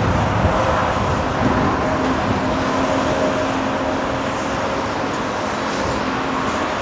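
Large Caterpillar hydraulic excavator's diesel engine running steadily under load as the bucket digs into broken rock, a constant drone with a low hum in it.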